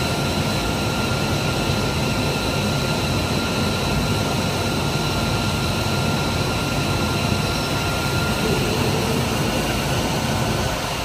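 F-35A Lightning II's Pratt & Whitney F135 turbofan running at idle: a steady jet rush with a high, steady whine.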